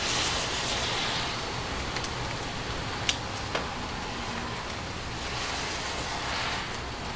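Steady hiss of rain during a night thunderstorm, swelling briefly near the end, with a few sharp ticks about two and three seconds in.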